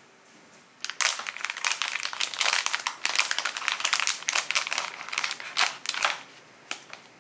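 Packaging crinkling as it is handled: dense crackling starts about a second in and runs for about five seconds, then comes a couple of last crinkles near the end.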